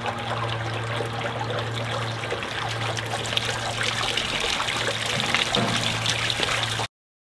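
Water bubbling up out of the top of a stacked-slate urn fountain and trickling down its sides, over a steady low hum. The sound cuts off abruptly shortly before the end.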